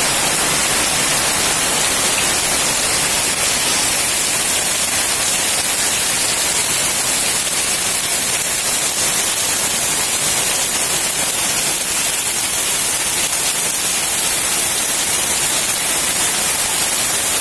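Heavy rain pouring down steadily, a loud even hiss with no breaks.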